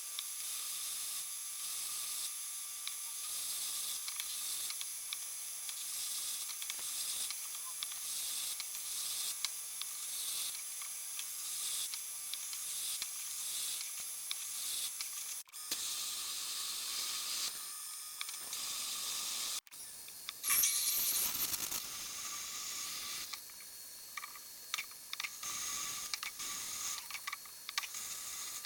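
Mini lathe running with a steady high-pitched whine while a drill bit held in the tailstock cuts into the spinning metal workpiece, a constant hiss over the motor. The sound breaks off abruptly about halfway through and again about two-thirds through, then a short louder burst follows and the cutting noise turns patchier.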